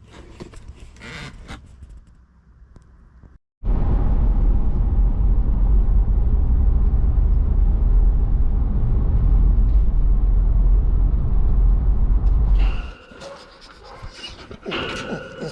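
A moving car's low rumble, loud and steady. It starts suddenly after a brief break about three and a half seconds in and cuts off about thirteen seconds in. Near the end, dogs whine and pant.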